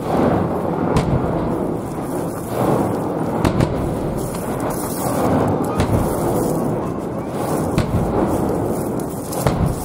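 Fireworks shells bursting low on the sea surface in quick succession: a continuous low rumble of overlapping booms, with about seven sharp cracks standing out through it.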